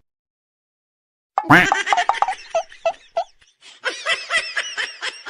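Laughter in a run of short, evenly spaced ha-ha pulses, starting after about a second and a half of silence, then a second, higher-pitched run of laughing near the end.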